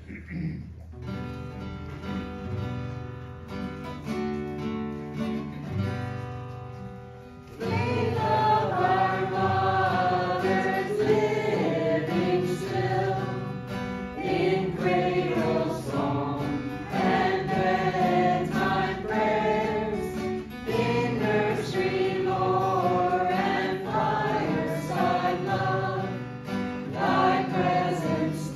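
A hymn: a quiet instrumental introduction, then voices singing with the accompaniment from about seven seconds in, noticeably louder.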